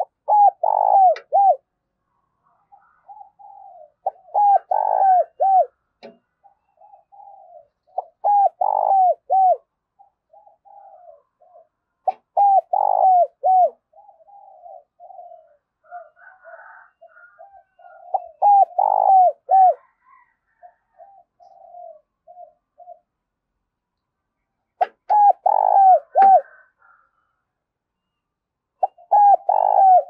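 Spotted dove cooing as a decoy call: seven loud bursts of three or four quick coos, about one every four seconds, with softer short coos in between.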